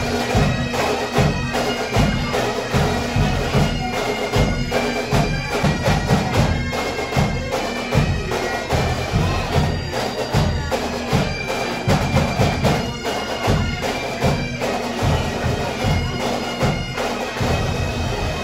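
Pipe band playing: highland bagpipes sounding a tune over their steady drones, with a regular beat underneath about every two-thirds of a second.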